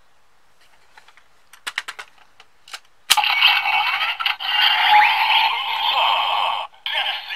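Small plastic clicks as a GUTS Hyper Key is fitted into a DX GUTS Sparklence toy, then a sharp click about three seconds in sets off the toy's loud electronic sound effect from its built-in speaker. The effect runs about three and a half seconds, and a shorter burst follows near the end.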